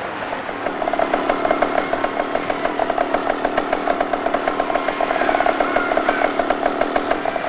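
Ural motorcycle's flat-twin engine running with a rapid, even pulsing beat, starting just under a second in.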